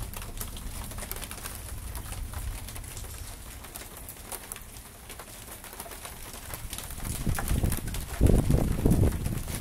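Thunder: a low, steady rumble that swells into louder rolling surges in the last two or three seconds.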